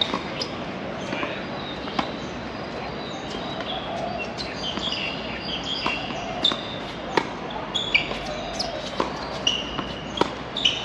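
Tennis balls struck by rackets and bouncing on the court, sharp knocks at an uneven pace of about one a second, with short high-pitched chirps in between.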